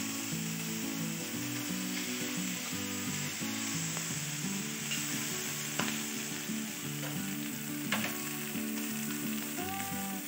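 Spiced chicken pieces sizzling steadily on a hot round stovetop grill pan, with two sharp clicks of a fork against the pan about six and eight seconds in.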